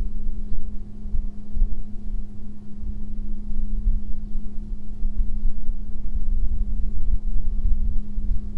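Wind buffeting the microphone as an uneven low rumble, with a steady low hum underneath.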